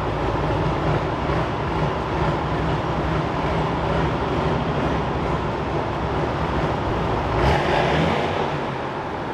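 Nashorn tank destroyer's engine running as the vehicle drives slowly on its tracks, with a brief louder burst about seven and a half seconds in.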